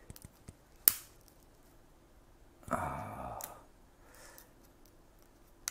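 Steamed blue crab shell being cracked and pulled apart by hand: one sharp snap about a second in and another near the end, with small clicks of shell between. A short low hum of a man's voice, like an appreciative "mm", comes in the middle.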